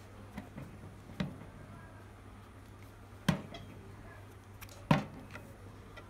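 Handling noise of a cylindrical portable speaker being picked up and turned over on a wooden workbench: a few sharp knocks, the two loudest about three and five seconds in, over a faint steady low hum.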